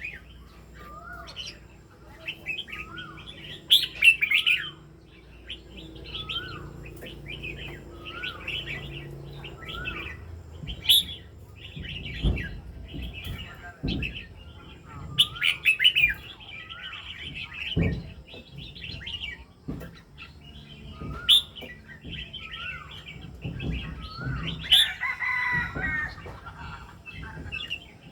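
A pet cage bird singing at home: a short rising-and-falling call repeated about every second and a half over a run of quicker, higher chirps. A few dull knocks come in the middle and near the end.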